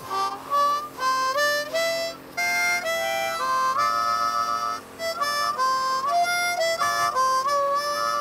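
Harmonica playing a slow melody of held notes that slide from one pitch to the next.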